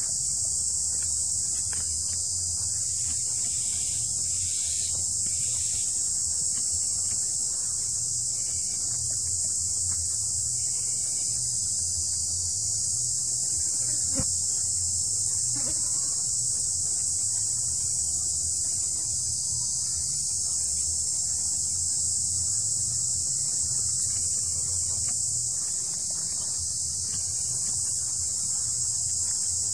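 Steady high-pitched drone of an insect chorus, unbroken throughout, with a single sharp click about halfway through.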